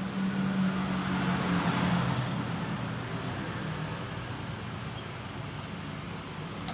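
Road traffic: a steady engine hum under road noise, with a swell of noise as a vehicle passes about a second in.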